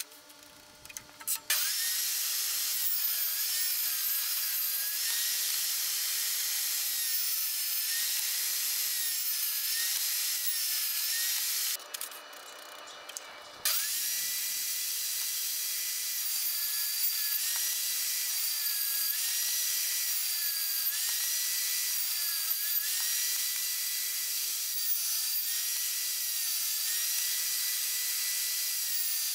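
Skilsaw table saw running and ripping plywood into small squares. Its motor whine dips in pitch again and again as the blade takes each cut, and there is a short break about twelve seconds in.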